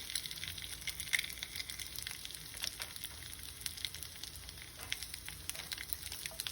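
Eggs frying in a hot pan: a steady sizzle with frequent small crackles and pops.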